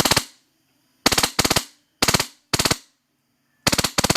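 Wolverine Inferno HPA airsoft gun firing on full auto in about seven short bursts of rapid shots, each burst lasting a fraction of a second.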